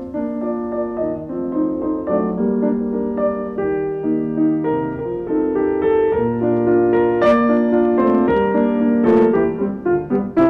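Piano music: a piece of held chords and single notes.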